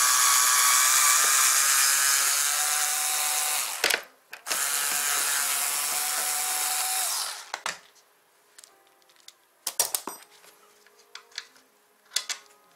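Electric drill-driver running on a scooter deck bolt in two runs, about four seconds then about three, the second lower in pitch. A few short metallic clicks follow near the end.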